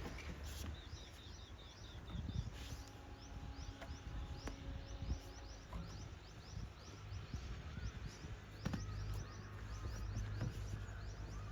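Low, steady rumble of a JCB 3DX backhoe loader's diesel engine running. From a couple of seconds in, a fast, even string of short high chirps plays over it, and there are two sharp knocks.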